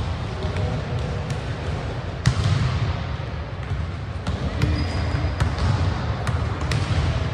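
Soccer ball kicked and bouncing on a hard gym floor: sharp knocks at irregular intervals, the loudest about two seconds in, over a steady low rumble of the large hall.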